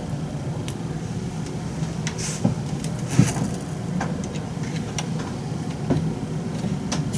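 Light clicks and taps of small parts being handled and fitted while a 3D printer's nozzle fan assembly is put back together, half a dozen scattered through, over a steady low hum.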